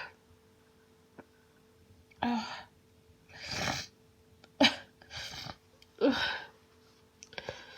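A woman sneezing over and over in a hay-fever sneezing fit: a run of about six short, sharp sneezes and catches of breath, roughly one a second, starting about two seconds in.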